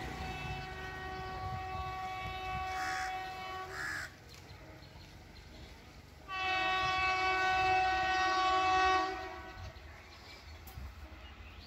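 Horn of an approaching WAP-5 electric locomotive, sounded in two long blasts. The first is already going and ends about four seconds in; the second, louder one starts about six seconds in and lasts about three seconds.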